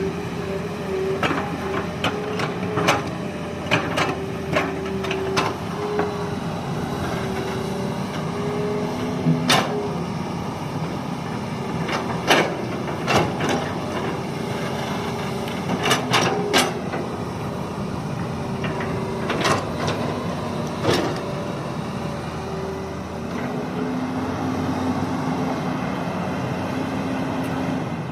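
Hitachi hydraulic excavator at work: the engine runs steadily with a whine whose pitch steps up and down, and sharp knocks and clanks come at irregular intervals throughout.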